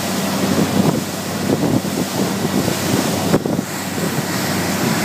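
Yamaha 250 outboard motor running at speed with a steady drone, mixed with the rush of the boat's wake and wind buffeting the microphone.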